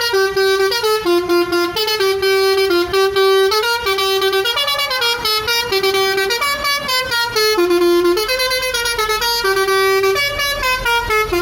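Basuri V4 telolet musical bus horn playing a tune: a continuous run of held notes stepping up and down in pitch, each lasting roughly half a second.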